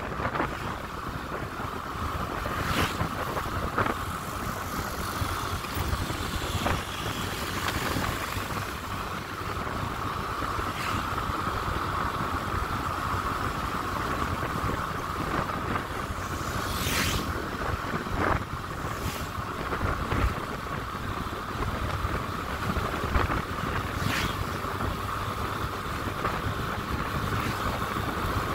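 Motorcycle ridden at a steady cruising speed: engine running with wind rushing over the microphone, and a few brief sharper rushes of wind.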